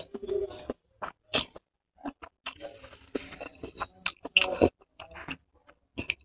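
Close-miked mouth sounds of eating chowmein noodles: slurping a forkful in and chewing, with irregular wet smacks and clicks.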